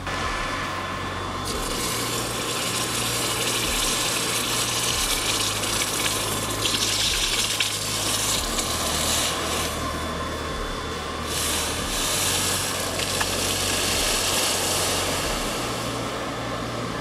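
Red-hot rebar blacksmith tongs quenched in a bucket of water: a loud, uneven hiss and bubbling as the steel boils the water, over a low steady hum. It starts about a second and a half in and dies down near the end.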